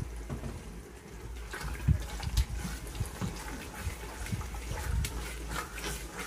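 Wooden spoon stirring a thick, oily tomato and pepper paste in an aluminium pot: wet squelching with irregular scrapes and taps against the pot, getting busier about a second and a half in.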